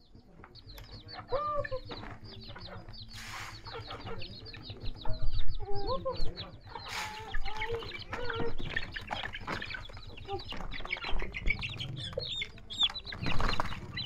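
Chickens clucking and a dense run of quick high peeps from young chickens as they are fed rice and handled into a bamboo basket, with a couple of brief rustles.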